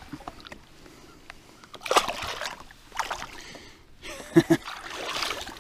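Water splashing at the side of a boat as a bass is released and kicks away, in bursts about two seconds in and again near the end. Two quick knocks come just before the last splashing.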